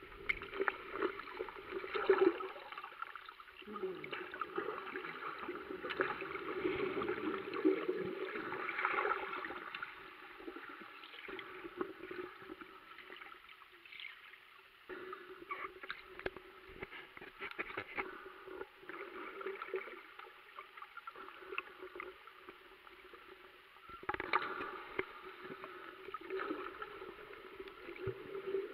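Muffled underwater water sloshing and bubbling, heard through a camera's waterproof housing, swelling and fading several times, with scattered small clicks and knocks.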